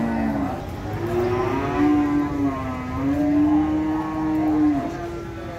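Cow mooing: one call trails off just after the start, then a long moo of nearly four seconds dips slightly in pitch and levels off. A low steady rumble runs underneath.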